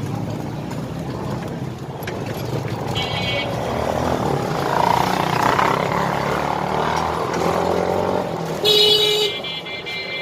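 Motorbike horns honking in traffic: a short honk about three seconds in and a louder one near the end, over steady engine and road noise that swells in the middle as vehicles pass.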